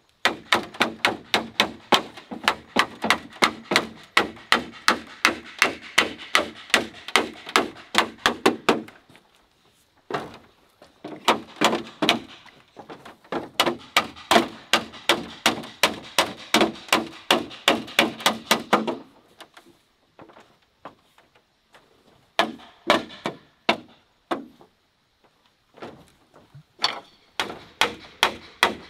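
Short wooden club hammering bamboo crosspieces into the joints of a bamboo house frame: sharp hollow knocks about three a second, in two long runs of several seconds each, then shorter bursts near the end.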